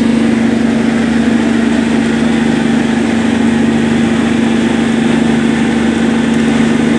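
A fishing boat's engine running steadily at an even pitch.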